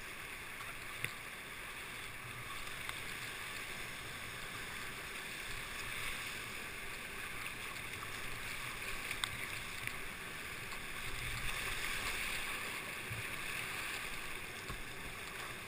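Rushing whitewater of a class V river rapid, heard from a kayak on the water: a steady hiss that swells a little in the second half, with a few faint clicks.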